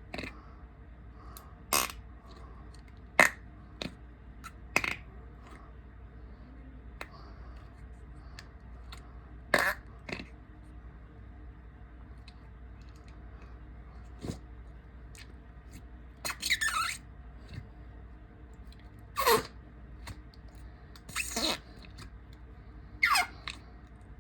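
A string of short fart sounds, about ten, spaced one to five seconds apart, a few of them falling in pitch.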